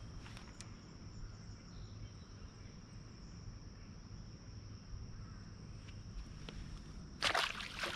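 Steady high-pitched trill of insects, typical of crickets, with a brief burst of rustling noise about seven seconds in.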